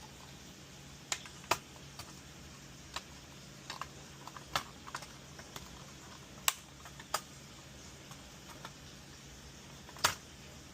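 Irregular sharp clicks and taps from hands and small tools working on an appliance control board, about fifteen in all, with the loudest near the end.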